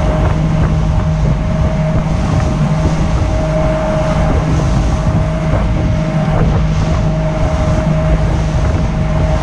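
Motorboat engine running steadily at high trolling speed, about 12 to 14 knots, with water rushing past the hull and wind buffeting the microphone.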